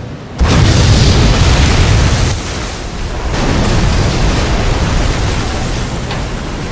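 Explosion sound effect: a sudden loud blast about half a second in, trailing into a long rumble that dips briefly and carries on.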